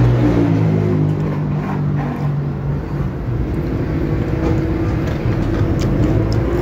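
Road traffic of cars and motorbikes passing close by: an engine's hum, its pitch shifting over the first few seconds, over a steady low traffic rumble.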